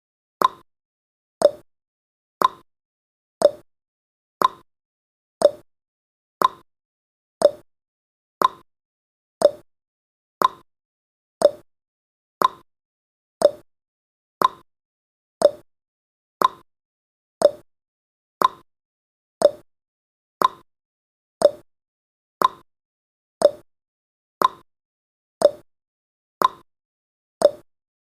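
Countdown timer sound effect: one short, sharp tick every second, evenly paced, each dying away quickly.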